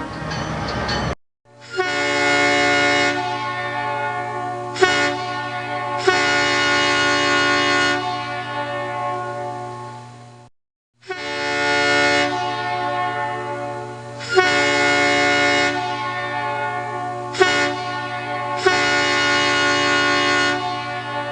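Multi-chime locomotive air horn sounding a chord of several tones over a steady low hum, in two near-identical sequences split by a brief break about halfway. Each sequence is a long blast with louder stretches and short sharp accents, fading out at the end.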